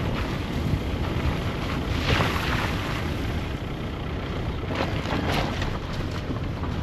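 Car driving along a road: a steady low rumble of engine and tyres with wind noise on the microphone. The noise swells briefly about two seconds in, and there are a few short knocks around five seconds.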